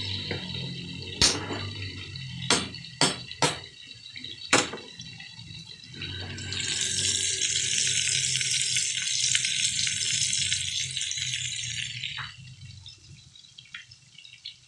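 A pot of chicken sinigang at a rolling boil, bubbling, with a few sharp clicks in the first five seconds. From about six seconds in, a pork chop frying in hot oil in a wok gives a steady sizzle that fades about twelve seconds in.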